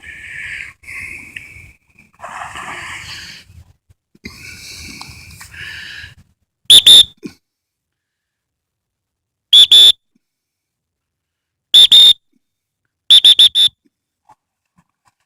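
A dog-training whistle gives three loud single blasts a few seconds apart, then three quick blasts. These are handling signals to a retriever out on the water. Breathy, rustling noise comes before them in the first six seconds.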